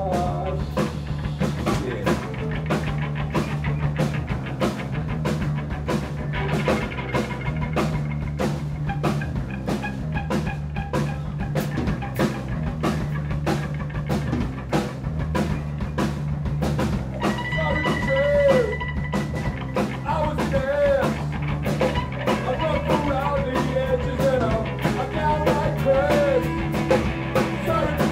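Punk rock band playing live: a steady drum-kit beat with bass and electric guitar. About halfway through, a high held note and a melodic line with bent notes come in over the band.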